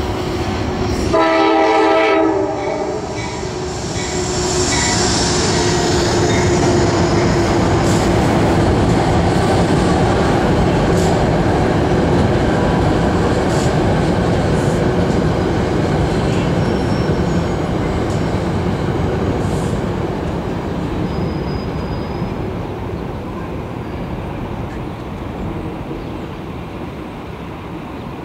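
A Metro-North GE P32AC-DM diesel locomotive hauling Shoreliner coaches sounds one horn blast about a second in. It then runs past close by, its wheels rumbling and clacking on the elevated track, and the noise slowly fades toward the end.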